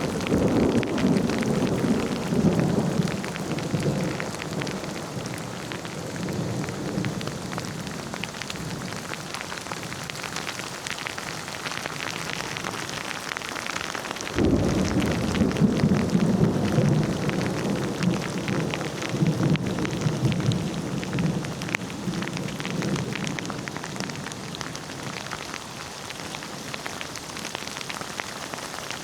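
Steady heavy rain with rolling thunder. A rumble dies away over the first few seconds, then a new thunderclap breaks suddenly about halfway through and rolls on, fading slowly.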